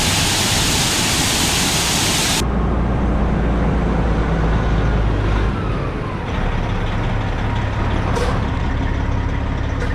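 Heavy diesel vehicle engine running steadily, with a loud hiss over it for the first two and a half seconds that cuts off abruptly.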